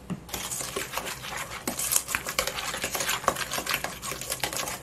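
Wooden spatula stirring a thick chili-flake and gochujang seasoning paste in a stainless steel mixing bowl: continuous wet scraping and clicking against the bowl, starting a moment in.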